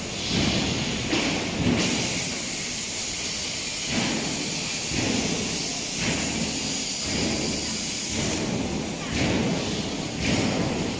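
Factory workshop noise around a truck chassis under assembly: a steady hiss over a low rumble.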